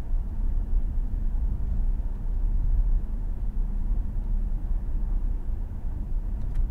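Steady low road and tyre noise with engine hum of a car cruising at about 58 mph, heard from inside the cabin.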